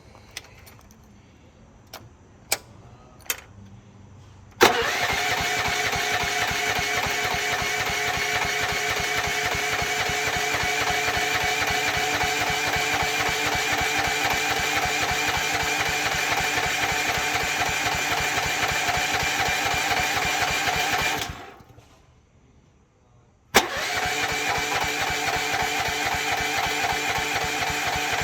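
Small gasoline engine on a Rippa Mule Trac mini excavator, with the choke on and a quarter throttle. A few clicks, then it catches suddenly about four and a half seconds in and runs steadily. About three quarters of the way through it dies away, then after a short silence it runs again. The stall fits a fault the owner puts down to an untunable knockoff carburetor or low compression.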